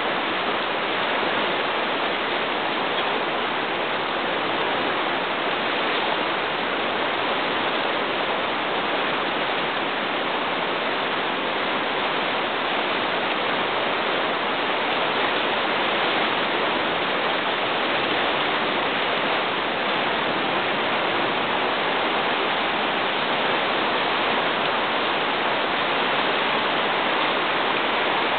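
Isar river running high and fast, a steady rushing of churning water with no breaks or changes.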